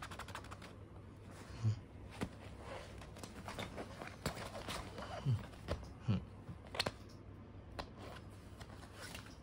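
Rustling and scratching on a fabric duvet as a kitten paws and bites at a plastic cable tie, with scattered light clicks and a few short low sounds.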